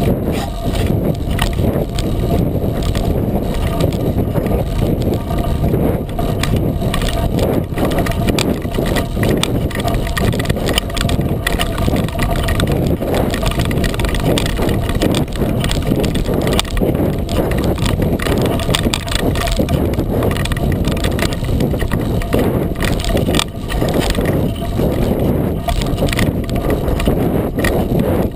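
A 36-inch Coker unicycle tyre rolling down a dirt and gravel trail, a steady low rumble of rolling and wind noise on the camera's microphone, broken by many small crunches and knocks from the tyre over stones and ruts.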